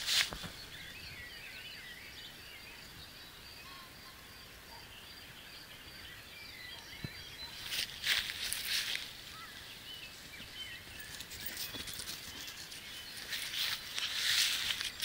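Brief rustles and crunches of feet or a body moving through grass and weeds, just after the start, about eight seconds in and near the end, over faint distant birdsong.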